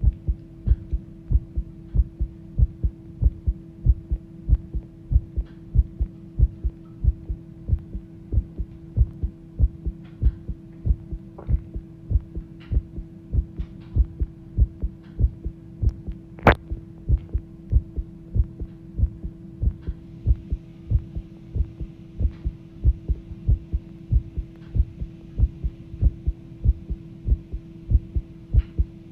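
A human heart beating fast, a steady rhythm of low thuds like a strong pulse ("dokudoku"), over a steady hum. A single sharp click comes a little past halfway.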